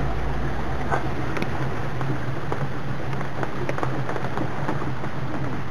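Small boat's motor running steadily with a low hum, under an even rush of water noise with a few faint splashes.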